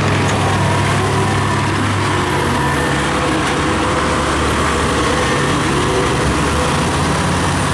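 Kubota DC-70 rice combine harvester running close by: its diesel engine and threshing machinery make a steady, unbroken drone.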